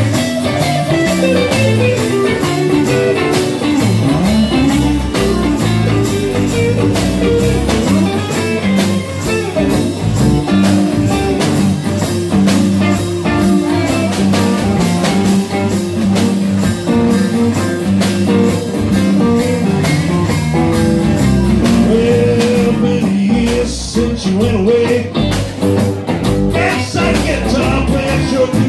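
Small live band playing a blues-rock song: electric and acoustic guitars over a snare drum and cymbal beat.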